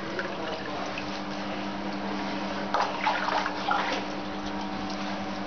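Water moving and splashing steadily in a dog hydrotherapy swimming pool, over a steady low hum, with a few brief louder splashes about three seconds in.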